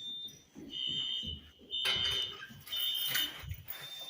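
Wheelock fire alarm horns sounding a high, piercing tone in repeated pulses, about one a second, a false alarm that the uploader thinks burnt food set off. Two brief noisy bursts come about two and three seconds in.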